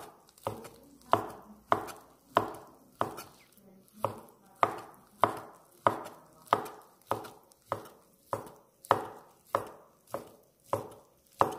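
A large kitchen knife chopping omelette on a wooden cutting board: a steady run of sharp knocks as the blade hits the board, a little under two a second.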